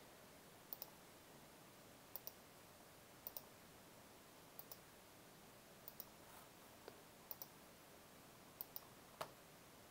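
Computer mouse button clicking at an even pace, about one click every 1.3 seconds, as thumbnails are command-clicked one at a time. Each click is a quick pair of ticks, the press and the release. A single louder click comes near the end.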